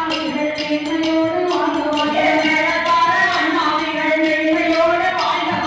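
Villupattu bow-song ensemble: women and a man singing a held, ornamented melodic line together, over a steady beat of sticks striking the bow's string and its brass bells.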